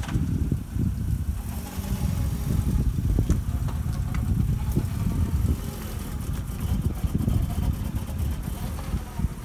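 Road traffic on a city street: a low, uneven engine and tyre rumble, with a higher hiss building from about a second and a half in as cars pass close by.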